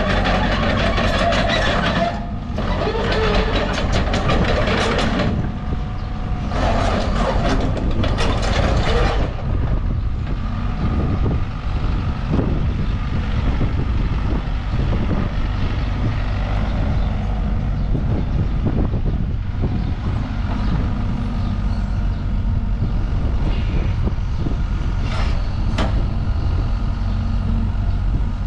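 Volvo EC55D midi excavator running steadily on its diesel engine while it travels on its tracks and swings, with hydraulic and track noise. There are three louder noisy spells in the first nine seconds.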